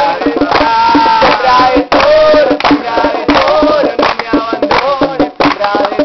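Loud music: a melody over repeated percussion hits.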